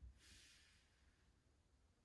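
Near silence with a person's faint breathing: one soft breath in the first moment, with a faint low bump at its start.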